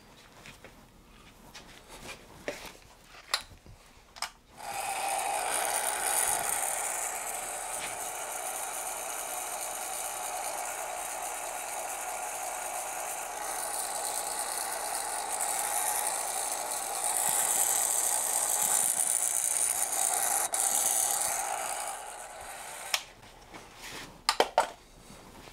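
A few light handling clicks, then a heat gun blowing steadily for about 18 seconds, a constant whoosh with a steady hum, before it switches off and more clicks follow. It is shrinking black heat-shrink tubing over a homemade LED-and-photoresistor pair.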